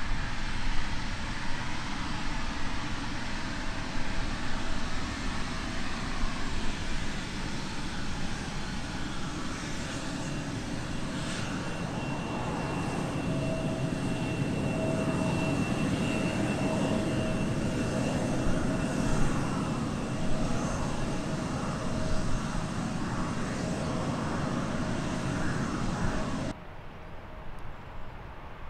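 The twin rear-mounted General Electric CF34 turbofans of a Bombardier CRJ regional jet run at taxi power as it rolls past: a steady rumble with a thin high whine, strongest in the middle. About 26 seconds in, the sound drops abruptly to a much quieter, distant engine noise.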